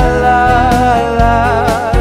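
Background music from a love song: a held melody note over steady accompaniment.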